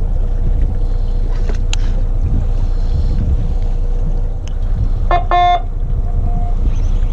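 The charter fishing boat's horn sounds two short blasts about five seconds in, the usual signal to reel in and end the fishing. They ring out over a steady low rumble of wind and the boat.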